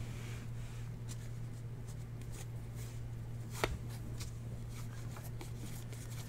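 Hands handling and flipping through a stack of baseball trading cards: soft slides and light taps of card on card, with one sharper tap about three and a half seconds in, over a low steady hum.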